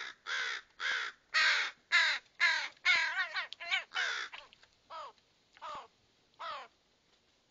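Fledgling ravens calling: a run of loud, harsh calls, each falling in pitch, about two a second, that after about four and a half seconds thins to three fainter, spaced calls.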